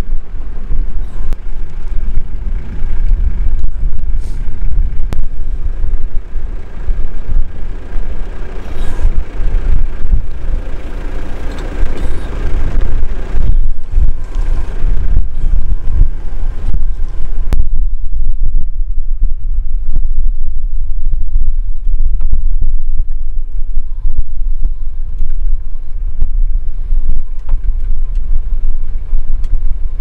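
Recovery truck's engine running during the tow, under heavy wind buffeting on the microphone. The truck's higher sound swells in the middle and then cuts off sharply a little past halfway, leaving mostly the low wind rumble.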